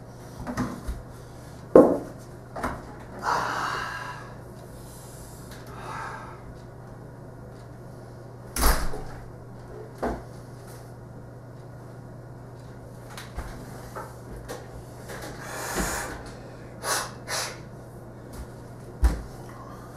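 Scattered knocks, bumps and short scrapes of a door, a plastic bucket and a broom being handled, the loudest thumps about 2 and 9 seconds in. A steady low hum runs underneath.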